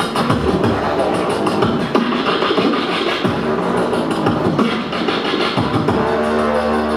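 Two beatboxers performing together through corded handheld microphones, layering fast vocal drum beats with deep falling kick sounds. A held, pitched note comes in near the end.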